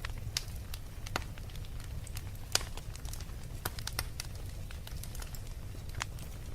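Wood fire crackling, with irregular sharp pops and snaps over a steady low rumble of burning; one pop about two and a half seconds in is the loudest.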